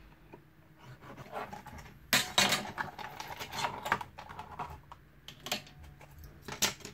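Small hacksaw cutting through the plastic casing of a digital photo frame, a couple of seconds of sawing strokes about two seconds in. Then a few clicks and knocks as the cut-off plastic strip and the frame are handled.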